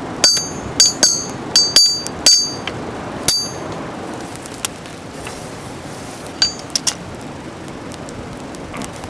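Hammer blows on steel against an anvil, each ringing briefly: about seven strikes in the first three and a half seconds, then three lighter taps a little past the middle and one more near the end. Forging a straightened coil-spring steel bar.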